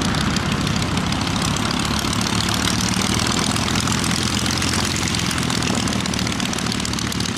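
Cessna 305C Bird Dog's six-cylinder Continental O-470 engine and propeller running steadily as the light aircraft flies past.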